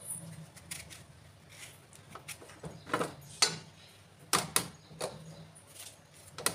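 Knife cutting a peeled yellow cucumber into small pieces in the hand over a steel plate: a string of irregular short clicks and taps.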